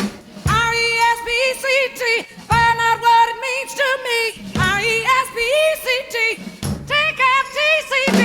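Background music: a pop song with a lead singing voice over bass and a beat.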